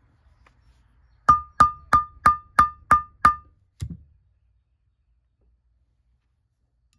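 Metal tapping on metal: seven quick ringing taps, about three a second, each ringing on the same clear note, then one duller knock.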